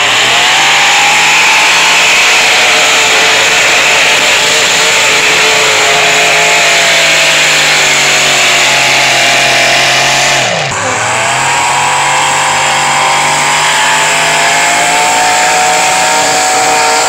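Farm tractor engines running hard at high throttle while pulling a weight-transfer sled down a dirt track. About ten and a half seconds in, the engine pitch drops sharply and climbs back up.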